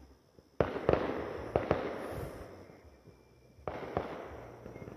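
Fireworks going off in two volleys. The first starts about half a second in as a cluster of sharp bangs and cracks. The second comes just under four seconds in, with one more bang. Each volley dies away over a second or two.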